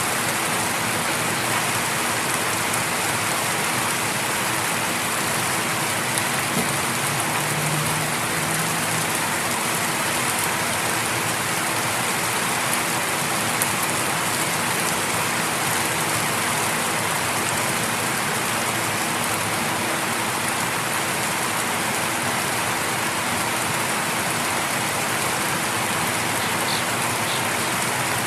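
Light rain falling steadily, an even patter of drops that holds constant throughout.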